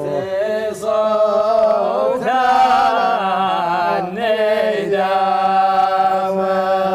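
Unaccompanied male voices chanting a Gulf Arabic sheila as a chorus, in long wavering held notes.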